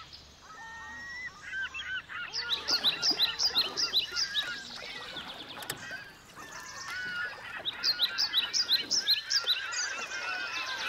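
Many birds calling at once, short chirps and arched call notes overlapping in a dense chorus. It is loudest in two spells, about two seconds in and again near eight seconds.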